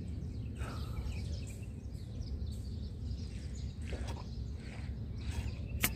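Faint, scattered bird chirps over a steady low outdoor rumble, with a sharp click just before the end.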